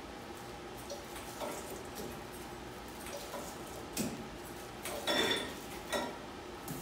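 Scattered clicks and clacks of a tabletop bag sealer's bar being pushed down and let up while plastic bags are handled at it, the sharpest click about four seconds in and a longer clatter about five seconds in.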